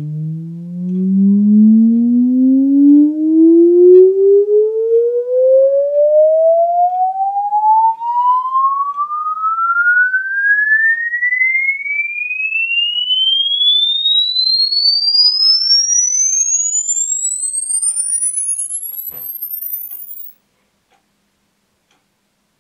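JBL Clip+ portable Bluetooth speaker playing a sine-wave frequency sweep test tone at high volume. A single tone glides steadily upward from a low hum to a thin, very high whistle, buzzy in the bass at first, and cuts off suddenly about twenty seconds in.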